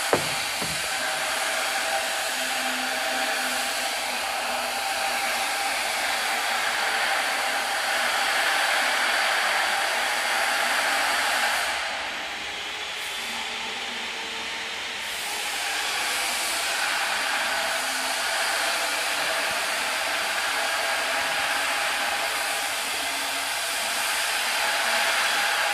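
Steady rushing hiss of industrial machinery running, like a blower, with a faint steady hum-like tone under it; a brief knock at the very start, and the noise drops for about three seconds near the middle.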